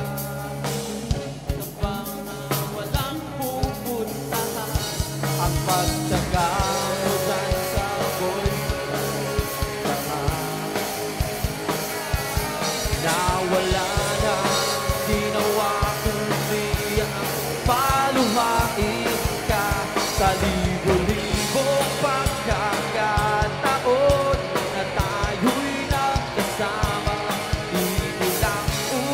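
Live rock band playing: electric guitars, bass and drum kit with a steady beat, and a male lead vocalist singing into a handheld microphone, the vocals coming in a few seconds in.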